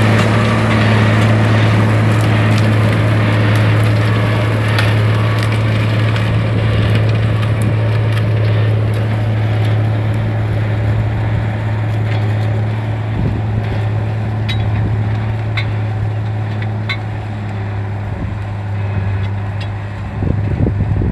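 Vehicle engine running with a steady low drone while going downhill, with scattered clicks and rattles over it; the drone drops slightly and wavers near the end.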